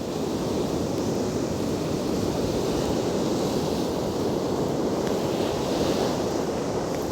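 Heavy winter surf: a rough sea with waves breaking continuously, with wind buffeting the microphone.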